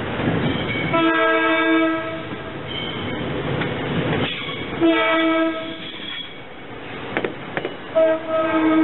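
SEPTA Silverliner IV electric multiple-unit train passing close by and sounding its multi-tone horn three times, each blast about a second long, over the rumble of the wheels and a few clicks over rail joints.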